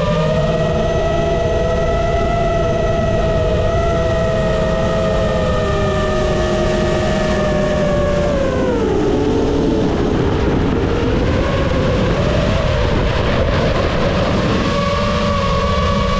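FPV quadcopter's four brushless motors and 5-inch props whining, their pitch dropping about eight and a half seconds in as the throttle comes off, wavering low, then climbing back a few seconds before the end. A steady rush of wind noise underneath.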